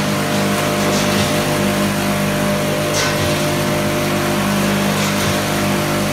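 Automatic multihead weighing and packing machine running: a loud, steady motor hum with a faint click about every two seconds.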